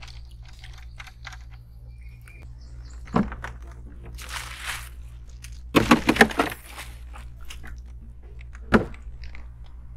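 A plastic bag of ice crinkling and crunching as it is handled and set into a plastic cooler, with a sharp knock about three seconds in, a louder burst of crunching around six seconds, and another knock near the end.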